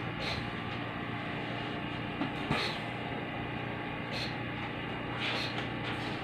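Oxygen concentrator running with a steady mechanical hum, with a few soft knocks and rustles of handling over it.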